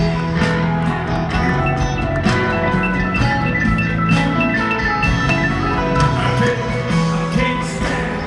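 Live rock band playing an instrumental passage, recorded from the arena audience. Bass, drums and guitars play under a keyboard line of short, repeated high notes that runs from about two seconds in to around five seconds.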